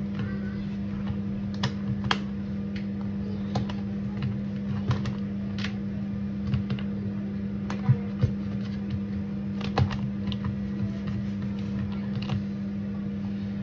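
Sushi rolling mat clicking and tapping against the counter in irregular light clicks as a sushi roll is pressed and rolled tight in it, over a steady low hum.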